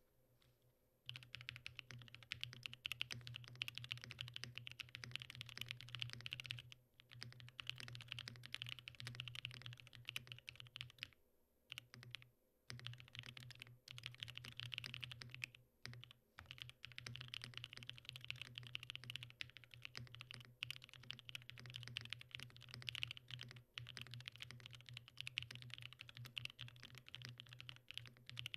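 Fast typing on a Mode Envoy custom mechanical keyboard with factory-lubed Matcha Latte switches and Mode Tomorrow keycaps, plate and PCB foam but no case foam, resting straight on a bare table. A steady stream of key clacks starts about a second in, with a few short pauses.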